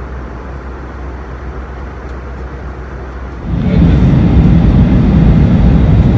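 Steady low vehicle rumble that jumps sharply louder about three and a half seconds in and stays loud.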